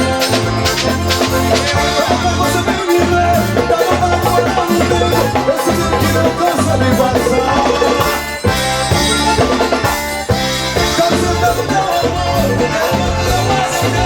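Instrumental band music led by an accordion melody, with drum kit and bass keeping a steady beat. The music breaks briefly twice in the second half.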